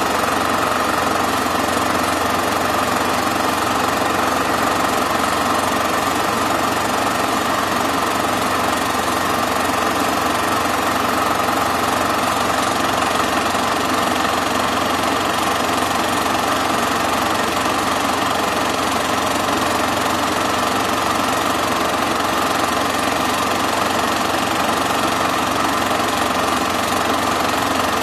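Super 8 film projector running steadily, a continuous mechanical whir and clatter of the film transport, unchanged across the picture cuts.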